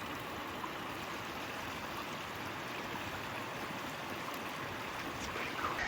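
Mountain stream running steadily, an even rush of flowing water.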